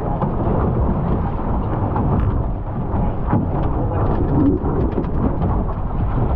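Wind rumbling on the microphone of an on-board camera, with water rushing and splashing against a GP14 sailing dinghy's hull. There are several short splashes along the way.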